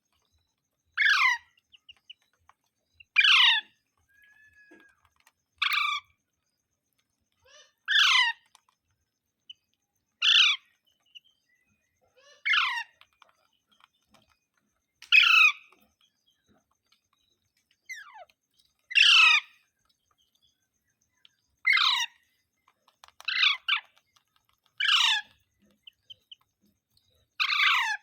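A parrot calling over and over: short calls, each sweeping steeply down in pitch, repeated about every two to three seconds.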